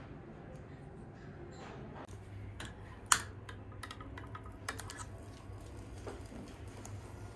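A run of light clicks and taps from a long-nosed gas lighter being worked at a small tabletop burner, with one sharp click about three seconds in, as the burner under a pot of soy milk for yuba is lit.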